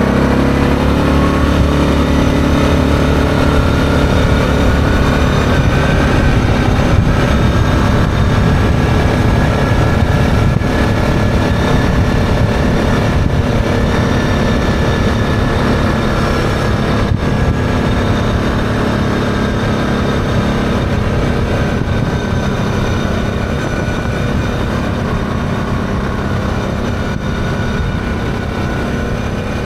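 ATV engine heard from on board while riding, running steadily after its pitch climbs over the first few seconds as it speeds up; it eases slightly toward the end.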